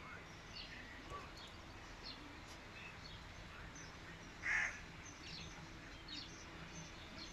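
Birds chirping with short, scattered high calls over a low background hum. One louder, harsher call comes about halfway through.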